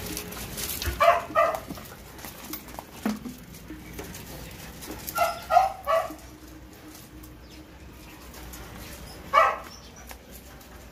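American bully puppies giving short, high barks: two about a second in, three in quick succession around the middle, and one more near the end.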